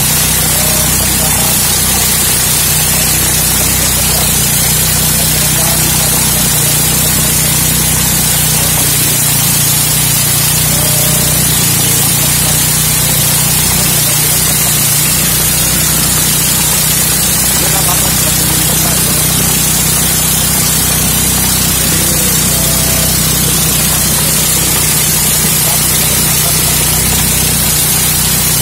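Motorized corn sheller running steadily as cobs are fed in: a loud, even rushing hiss over the low hum of its motor.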